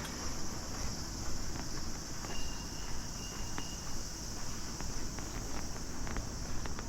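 Insects chirring in a steady high-pitched drone, with a few faint clicks scattered through it.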